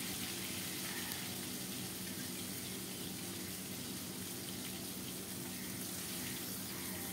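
Fish pieces frying in hot oil in a kadai: a steady sizzle.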